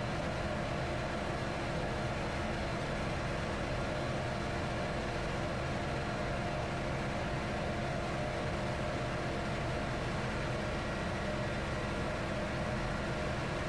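Steady machinery hum with several constant tones over an even hiss, unchanging throughout, with no distinct tool or handling sounds.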